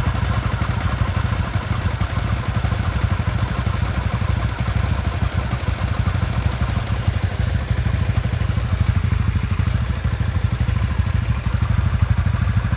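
Yamaha Exciter 155 VVA's single-cylinder SOHC engine and Honda Winner X's single-cylinder DOHC engine idling together, a steady even pulse with no revving.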